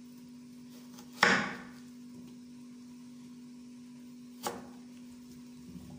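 Kitchen knife chopping through raw taro onto the cutting surface: two sharp chops, a loud one about a second in and a lighter one some three seconds later.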